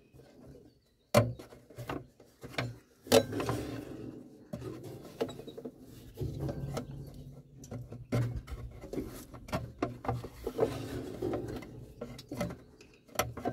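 Handling noise as a new rubber fan belt is worked over the engine's cooling fan blades one blade at a time: irregular knocks and scrapes against the fan and its guard, with rubbing between them. The sharpest knocks come about a second in and about three seconds in.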